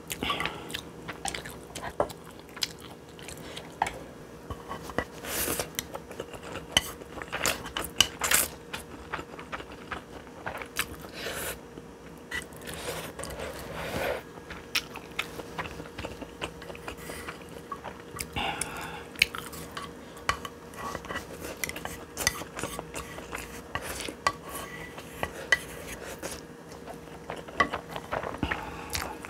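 Eating spicy stir-fried instant noodles: chewing and biting, with utensils clicking and clinking against the bowl again and again.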